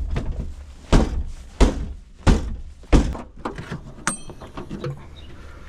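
Heavy blows against the latched tailgate of a Chrysler PT Cruiser, about five in quick succession roughly two seconds apart... then lighter knocks and a sharp metallic click with a brief ring about four seconds in. The door is jammed shut by a failed central lock.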